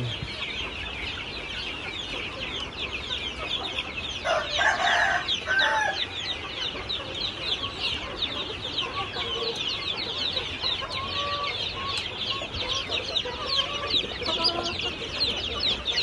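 Many chicks peeping at once in a steady chorus of short, high, falling cheeps. About four seconds in, a louder chicken call stands out, and softer clucks come through now and then later on.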